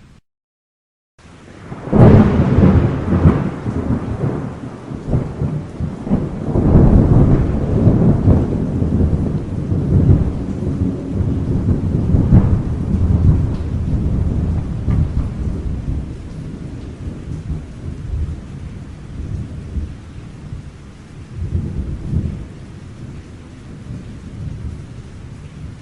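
Thunder: after a brief dead-silent gap, a loud clap about two seconds in breaks into a long, rolling rumble that gradually eases over the second half, with steady rain throughout.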